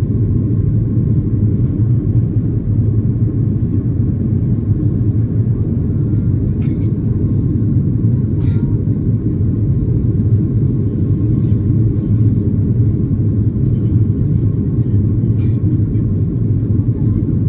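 Steady low rumble of engine and airflow noise inside the passenger cabin of a Boeing 737-800 climbing just after takeoff, with its CFM56-7B turbofans at climb power. A few faint clicks are heard over it.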